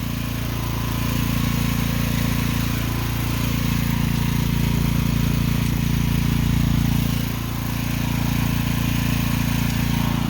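Mini excavator engine running steadily, its level swelling slightly a couple of times and dipping briefly near the end.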